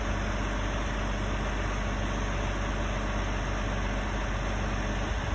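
A heavy engine running steadily at a constant speed, a low hum with a hiss of noise over it.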